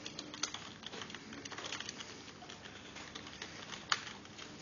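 Fingertip tapping on a smartphone's glass touchscreen: a run of light, irregular taps, with two sharper ones about half a second in and just before four seconds.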